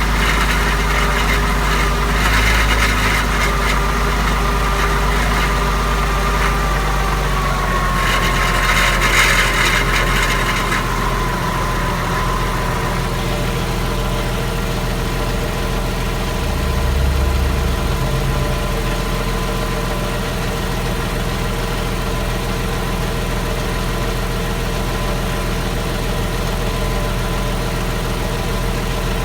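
Porsche Boxster engine idling just after a start, with a whine that falls slowly in pitch over about the first dozen seconds and then holds steady. There are two spells of hiss, about two and about nine seconds in. This after-start noise is what the owner is asking about.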